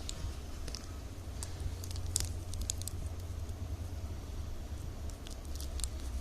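Plastic strips cut from milk-powder bags crinkling and clicking in irregular bursts as they are folded and woven by hand, over a steady low hum.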